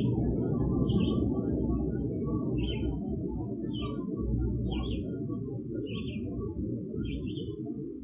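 A bird's short high chirps, repeated about once a second, over a loud low rumble of background noise.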